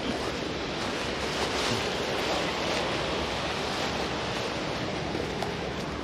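Steady rushing of water from a waterfall, mixed with low wind rumble on the microphone.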